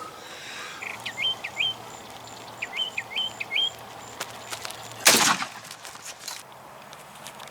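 A small bird chirping outdoors: two short runs of quick, rising chirps, followed about five seconds in by one brief loud rustling noise.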